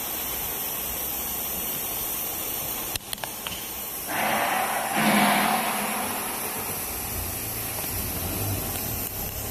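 CNC router machine running with a steady mechanical hiss and hum. There are a few sharp clicks about three seconds in, and a louder rush of noise from about four to six seconds.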